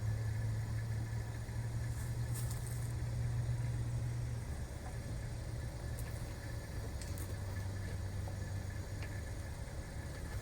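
Steady low engine-like hum that eases off a little over four seconds in, with a few faint clicks.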